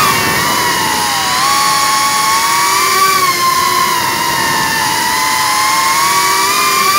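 FPV quadcopter's brushless motors and propellers whining in flight, heard from the onboard action camera. The pitch wanders up and down with the throttle and climbs near the end.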